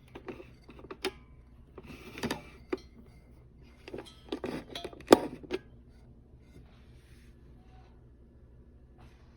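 Clatter of objects being handled: a string of clicks and knocks over the first five and a half seconds, loudest about five seconds in, then quiet background.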